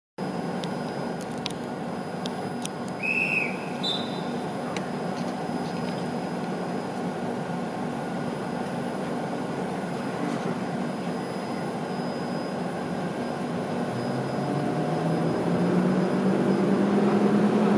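EP08 electric locomotive and its passenger coaches starting off slowly, a steady electrical hum with a short high whistle about three seconds in. In the last few seconds the hum rises in pitch and grows louder as the train picks up speed.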